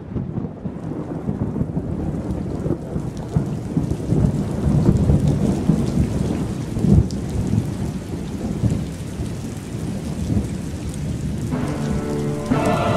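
Thunderstorm: steady heavy rain with thunder rumbling low and building in loudness. Music comes in near the end.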